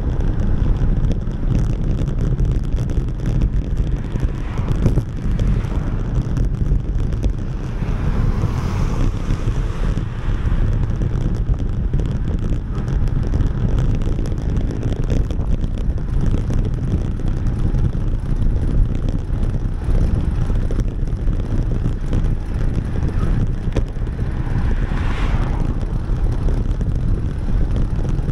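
Wind buffeting an action camera's microphone while riding: a steady, heavy low rumble, with a brief swell of higher hiss about 25 seconds in.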